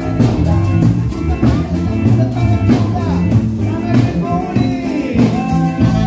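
Live band playing lively Latin dance music on violin, saxophone, guitar and drum kit, with a steady drum beat and sliding melody lines over it.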